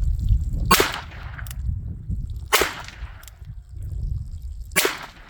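Three shots from a revolver firing .32 Smith & Wesson Long, sharp cracks spaced about two seconds apart, at a steel target that none of them hits.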